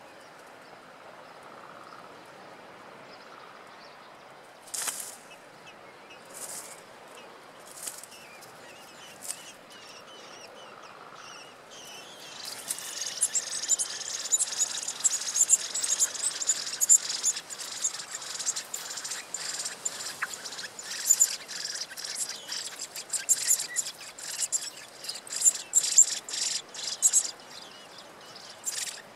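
Eurasian blackbird nestlings begging for food: a few short high calls, then about twelve seconds in a dense run of rapid, high-pitched chirps lasting some fifteen seconds while a parent feeds them, dying down near the end.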